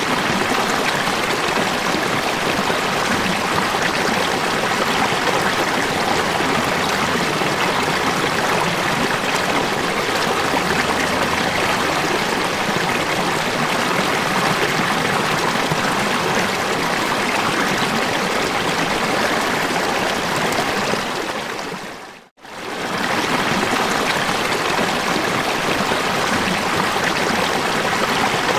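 Running water, a steady full rush of falling water. About 22 seconds in it fades out to a moment of silence and fades straight back in, as at the seam of a looped recording.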